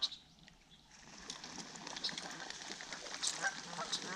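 Canada geese starting to call, a few honks coming in from about three and a half seconds in, as the flock is disturbed by an approaching kayak. Beneath them is a hiss that rises from about a second in.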